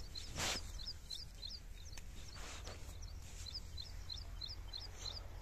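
Small birds chirping in quick runs of short, high notes, with two brief scuffs of footsteps on dry, clumpy ploughed soil, the first about half a second in and louder than the rest.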